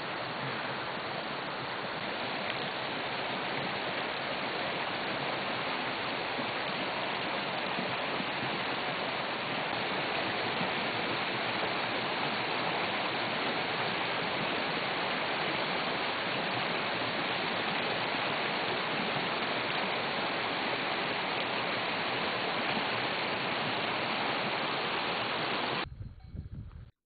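Spring water gushing out of the rocks and rushing down a rocky bed in white torrents: a steady rush that cuts off suddenly about a second before the end.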